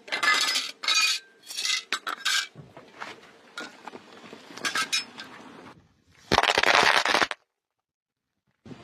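Hard, brittle objects cracking and clinking as a car tyre rolls over and crushes them. A string of sharp cracks and crackles is followed by one longer, louder crunch about six seconds in, which stops abruptly.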